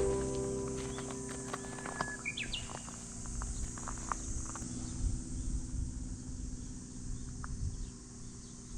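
Outdoor campsite ambience: a brief bird chirp a couple of seconds in over a steady insect-like hiss, with scattered small clicks.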